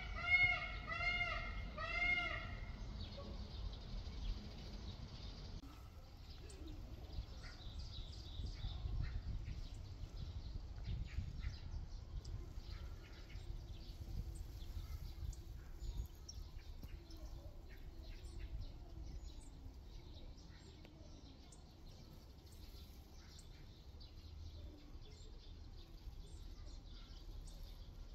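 Outdoor ambience: scattered bird chirps over a steady low rumble. It opens with a short run of evenly repeated calls, about two a second, that stop about two and a half seconds in.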